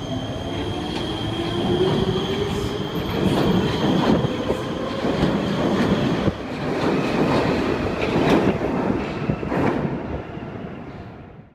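Metro train pulling out along the platform: its motor whine rises in pitch and settles, then wheels clatter irregularly over the rails as it goes. The sound fades out near the end.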